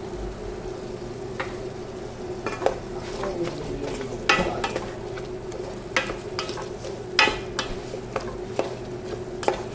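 Food sizzling in a pan while a utensil stirs it, knocking and scraping against the pan every second or so, over a steady hum.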